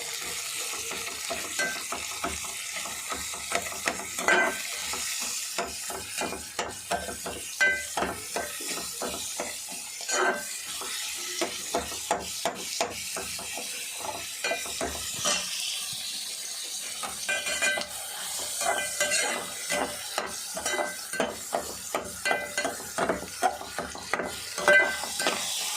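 Onions and green chillies frying in hot oil, a steady sizzle, while a spoon stirs them, scraping and clicking against the pan many times.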